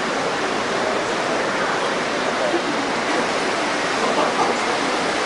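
Steady hubbub of a crowd in a large hall, with indistinct voices blending into an even wash of noise.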